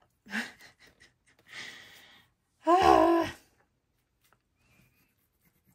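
A woman's breathy exhale, then about three seconds in a louder, short voiced sigh with a falling pitch.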